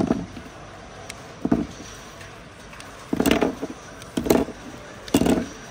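Workbench handling noises: five short knocks and scraping clatters, the last three a little longer, over a faint steady hum.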